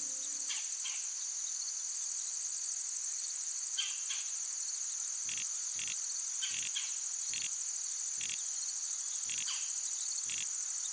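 Steady, high-pitched chorus of insects. From about halfway through comes a series of short clicks, roughly one a second, from a spinning fishing reel being handled.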